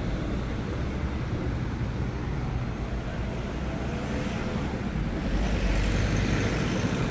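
Street traffic: a steady rumble of engines and tyres, with a vehicle passing closer and louder from about five seconds in.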